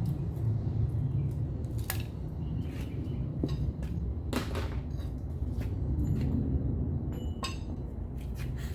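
Scattered metallic clicks and clinks of hand tools and parts being handled during fender removal, over a steady low rumble.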